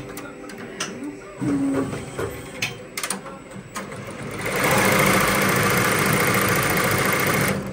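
ZSK multi-needle embroidery machine, quiet and clicking at first. It then stitches at full speed with a rapid, even needle clatter for about three seconds and stops abruptly near the end, as the design is finished.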